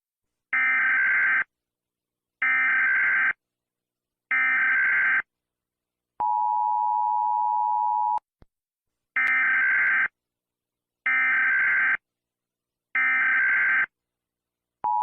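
Emergency Alert System tones: three one-second bursts of SAME header data tones about two seconds apart, then a two-second two-tone attention signal. Three more data bursts follow, and the attention tone starts again at the very end.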